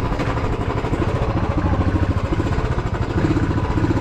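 Royal Enfield motorcycle engine running as the bike is ridden, with a rapid, even beat.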